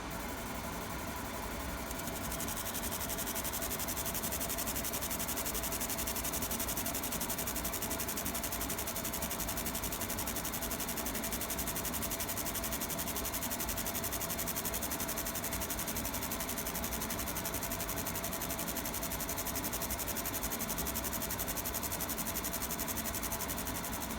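50 W fiber laser marking machine deep-engraving metal: a steady, finely pulsing high hiss that comes in about two seconds in, over the continuous hum of the machine's cooling fan.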